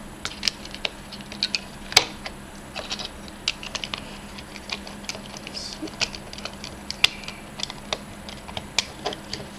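Small plastic clicks and taps as an AA battery is pressed into the PowerUp charger's plastic battery compartment and the cover is fitted back on, with the sharpest click about two seconds in.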